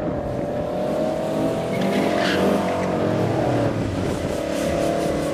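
BMW 840's V8 accelerating hard down a drag strip, its pitch climbing, then dipping briefly at a gear change about three and a half seconds in before pulling on. It runs smoothly and picks up quickly.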